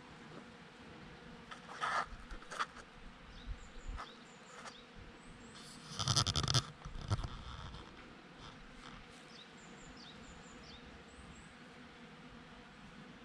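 Bees buzzing around blossoms, passing close to the microphone twice, about 2 s in and more loudly around 6 s in, with faint high bird chirps in the background.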